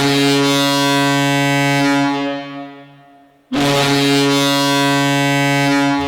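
Colorado Eagles' hockey arena goal horn sounding two long, loud blasts. The first fades away about three seconds in, and the second starts abruptly right after it.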